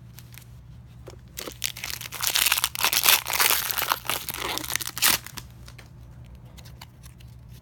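A foil trading-card pack wrapper being torn open and crinkled for a few seconds, a loud crackling that starts about a second and a half in and stops near the middle.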